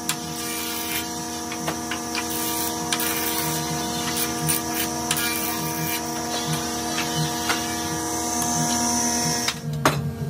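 Electric jointer-planer running with a steady motor hum as a wooden board is pushed across its bed, with scattered light knocks. Near the end the hum stops abruptly and a sharp tap follows.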